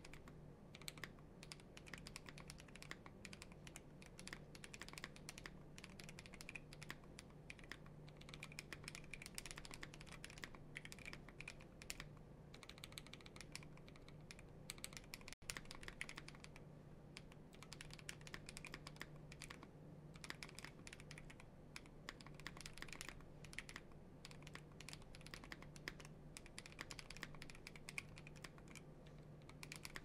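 Fast, continuous typing on an Exclusive E8.5 tenkeyless mechanical keyboard with Holy Panda tactile switches: a dense stream of key clacks. The sound drops out for an instant about halfway through.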